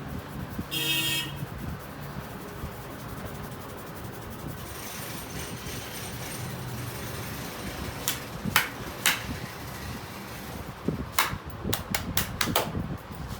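Sharp hand slaps of a head massage: three spaced about half a second apart, then a quick run of five or six near the end, over steady street noise. A brief horn-like tone sounds about a second in.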